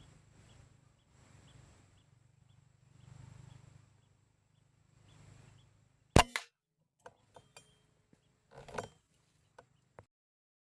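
A single PCP air rifle shot about six seconds in, a sharp crack, followed by a few light clicks and a short knock.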